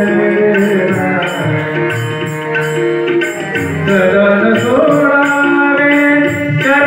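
Devotional song played on harmonium with tabla: the harmonium holds sustained chords, the tabla keeps a steady rhythmic pattern, and a man's singing voice glides over them.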